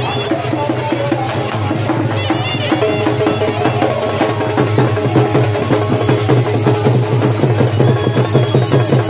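Traditional folk drumming: drums beaten in a fast, steady rhythm that grows denser about three seconds in, with a steady held tone over it.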